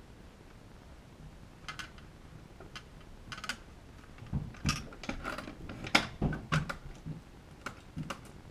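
Clicks and clunks from a Kaba Simplex 1000 mechanical push-button lock being worked by hand while its combination is changed. A few faint clicks at first, then a quick run of sharper clicks and knocks from about four seconds in.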